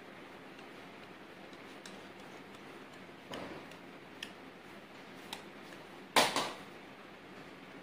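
Faint, irregular light clicks and one sharp knock about six seconds in, from a bowl being handled over a metal cake tin while thick cake batter is poured in; the pour itself is barely heard.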